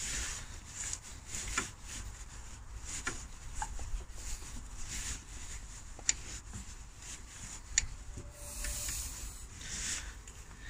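A tightly pushed-on rubber heater hose being twisted and worked at by hand: irregular rubbing and scraping, with a few sharp clicks from the clip and fittings.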